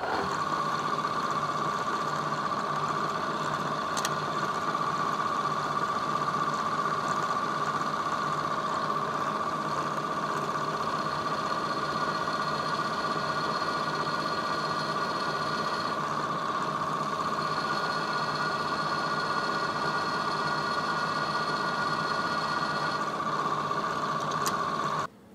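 Milling machine spindle running steadily with a constant whine, driving a number 7 drill bit into aluminium; the bit is dull and barely cutting. The machine is switched off and the sound stops abruptly near the end.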